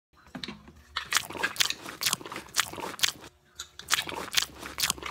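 Hands rubbing and scrubbing a wet red acrylic sheet in a stainless-steel sink: a quick, uneven run of crunchy scraping strokes, several a second, with a short break a little after three seconds in.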